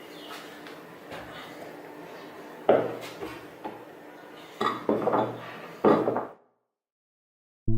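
Metal clanks and clinks of old garden tools being handled and set down, with a handful of sharp knocks in the second half; the sound cuts off abruptly near the end.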